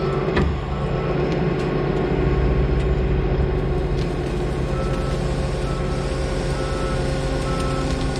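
Heavy vehicle engine running steadily, with a reversing alarm beeping about once a second from about five seconds in. A single knock sounds about half a second in.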